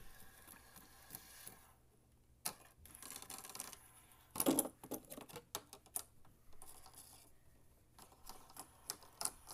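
Irregular clicks, taps and rustles of objects being handled and set down on a tabletop, with a louder knock and rustle about four and a half seconds in.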